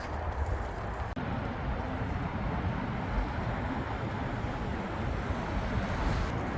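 Steady rumbling wind and road noise on a microphone carried while riding a bicycle, breaking off for an instant about a second in.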